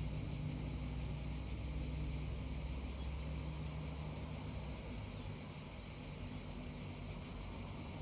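Cicadas droning steadily in a high continuous band over the soft rush of a babbling stream. A low steady hum, like a distant engine, fades over the first few seconds.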